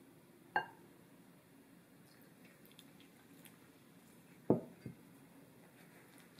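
A wooden spoon knocking against a glass mixing bowl while a crumbly flour dough is stirred. There is a ringing clink about half a second in, then a louder knock with a smaller one right after it, a little past four seconds in. Faint scraping of the dough comes between the knocks.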